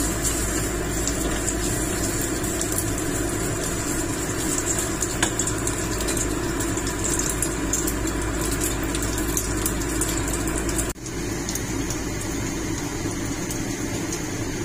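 Steady mechanical hum and hiss of kitchen background noise, with light scrapes of a silicone spatula tossing spaghetti in a nonstick pan in the first few seconds. The hum drops out for an instant about eleven seconds in, then carries on.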